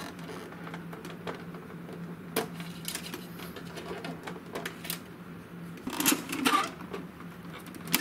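Scattered small clicks and taps of flat flex cables being worked out of their connectors inside an Epson L3110 printer, with a brief rustling scrape about six seconds in. A low steady hum runs underneath.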